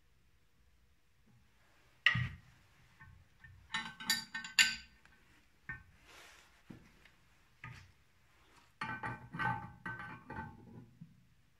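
Steel open-end wrench clinking and rattling against nuts and studs on an engine cylinder head, in short ringing metallic bursts: a sharp clink about 2 s in, a rattling cluster around 4–5 s, a few single ticks, then another rattling run near the end.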